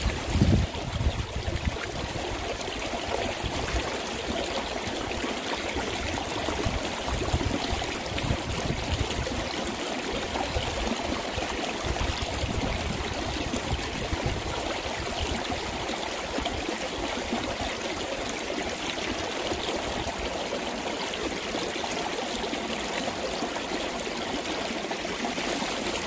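Mountain stream, swollen after rain, running steadily over rocks: a continuous, even rush of water.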